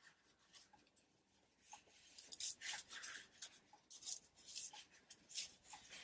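Tissue rubbing over paper, wiping off wet tacky glue: faint short scratchy strokes that start about two seconds in.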